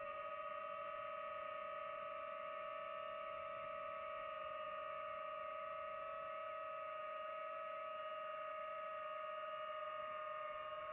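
FPV quadcopter's electric motors and propellers whining at a steady pitch in cruising flight, the pitch wavering slightly near the end.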